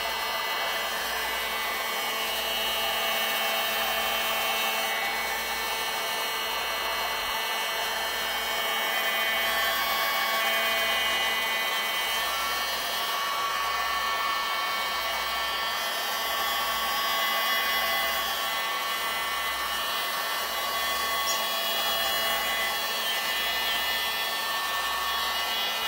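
Genesis heat gun blowing steadily on its low setting to warm a pad's adhesive: an even whirring hiss with thin whining tones that holds unchanged throughout.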